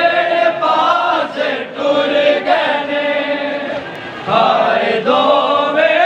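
A group of men chanting a noha, a Shia mourning lament, together in long held, wavering lines.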